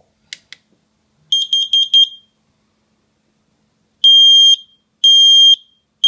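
Combination smoke and carbon monoxide alarm being tested with its test button: two clicks, a quick run of short high beeps, then after a pause loud half-second beeps about once a second.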